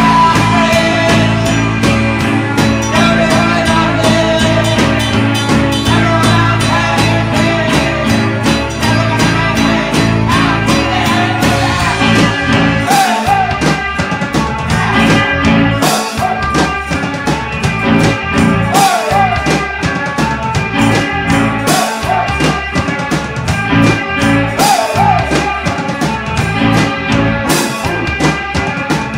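A live rock band playing a song: a singer over strummed acoustic guitar, keyboard and a drum kit. The drum hits come through harder from about halfway through.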